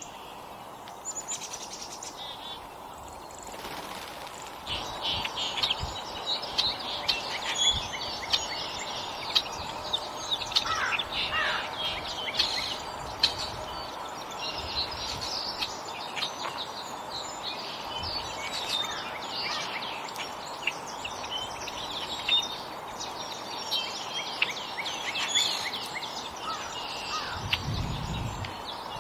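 Small songbirds chirping around a feeder: many short, high chirps and calls in quick succession over a steady background hiss, with a brief low rumble near the end.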